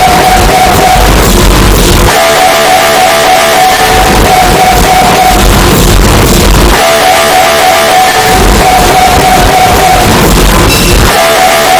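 MRI scanner noise boosted until it clips and distorts. Stretches of steady, high buzzing from the gradient coils, a few seconds long, take turns with shorter stretches of low, noisy rumble, the way the scanner switches between pulse sequences.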